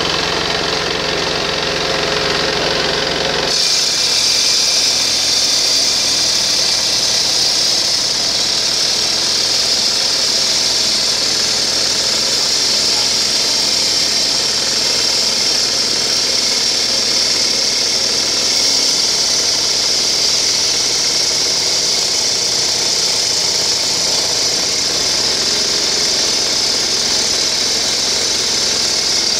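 Granite-cutting saw running loud and steady. About three and a half seconds in, the low hum drops away and a high, steady hiss takes over.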